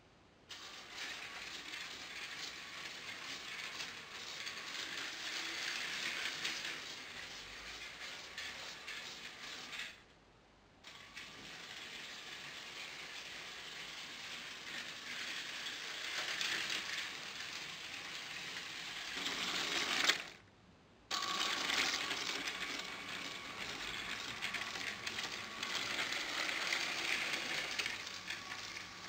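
Lego train running on plastic track: the Power Functions train motor whirs steadily through its gears as the wheels roll. It goes quiet twice, for under a second each time.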